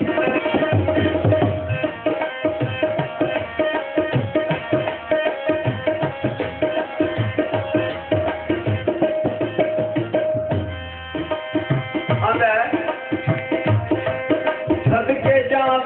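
Instrumental folk-music interlude: tabla playing a quick, steady rhythm under a sustained melodic note. The drumming thins out briefly about ten seconds in, then a wavering melody line comes in over it.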